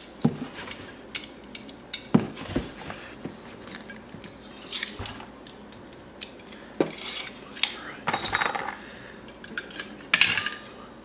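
Small metal paintball marker parts clinking and rattling as they are rummaged through in a box and set down, a string of irregular clicks and knocks.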